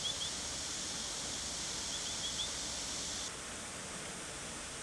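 Outdoor ambience: a steady high hiss with two short runs of quick, high chirps, one right at the start and one about two seconds in. The hiss drops a little after three seconds in.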